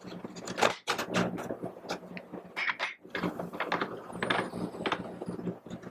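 Irregular knocks, clicks and clatter of parts being handled and fitted together, over a steady low hum.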